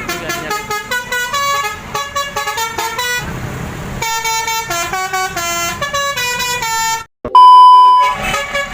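Basuri melodic bus horn, the multi-tone 'telolet' horn, playing a quick tune of stepping notes, with a short noisy break about three seconds in. After a brief cut-out near the end comes one loud, steady held note.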